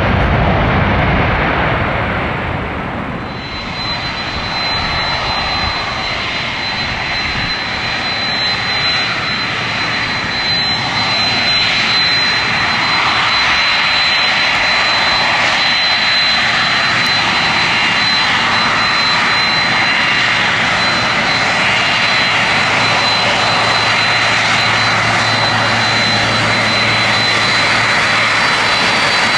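Jet airliner engines running, a loud, steady noise with a thin, high, steady whine that comes in about three seconds in.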